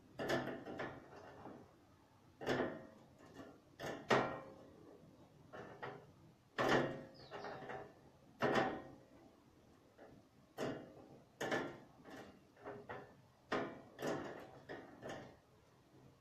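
About a dozen knocks and clatters at irregular intervals, each starting sharply and fading within a moment, the sort made by drawers, doors or objects being handled in a small room.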